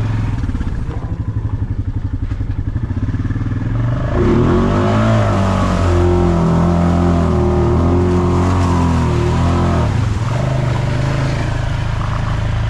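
Off-road vehicle engine idling, then revving up about four seconds in and running faster for several seconds before dropping back to idle.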